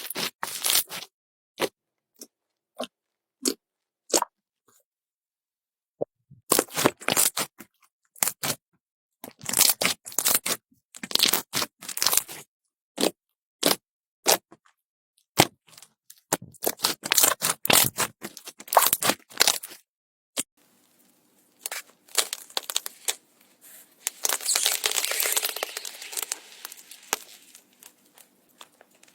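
Slime being pressed and stretched by hand, giving sharp crackling pops and clicks, first a few at a time, then in dense runs of a couple of seconds each. In the last third it turns to a steadier crinkling sound.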